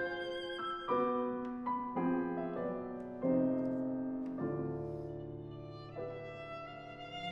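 String quartet (two violins, viola and cello) playing slow, held chords with vibrato, each new chord starting with an accent and then fading.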